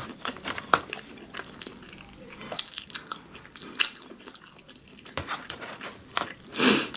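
Close-miked eating: crunchy bites and chewing of fast food, heard as many short crackles and clicks, with a louder short rush of noise near the end.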